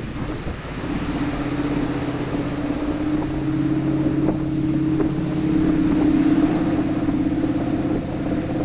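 Towboat's engine running steadily under way, its note stepping up slightly and growing louder over the first few seconds, over the rush of the churning wake and wind on the microphone.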